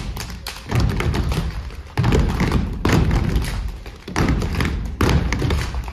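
A children's step team stomping boots on a stage floor and clapping in a fast, percussive step routine: runs of sharp thuds and claps broken by short pauses.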